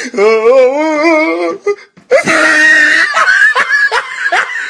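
A person's voice wailing with a wavering pitch for about a second and a half. After a short pause comes a louder, harsher cry. These are distorted meme sound-effect clips.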